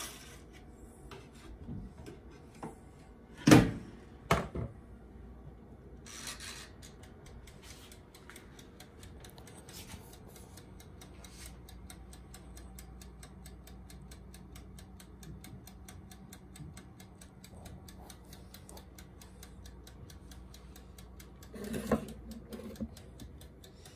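Two sharp knocks, then a steady mechanical ticking of about three or four ticks a second that runs on for most of the time and stops shortly before the end.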